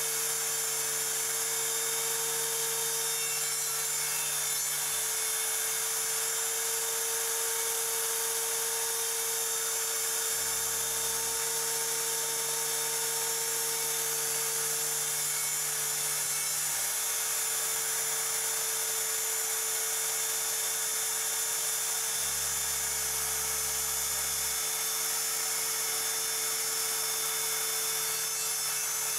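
Router spindle on a hobby CNC router running steadily at high speed, a high whine, while it cuts holes in a plywood sheet. Beneath it a lower machine hum changes pitch about ten seconds in and again about 22 seconds in, as the axes move between cuts.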